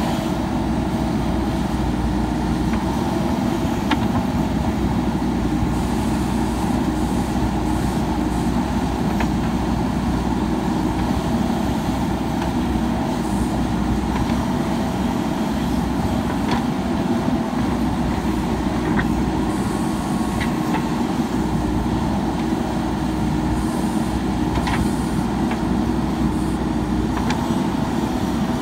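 JCB 3DX Super backhoe loader's diesel engine running steadily under digging load as the backhoe works, with a few faint sharp clicks scattered through.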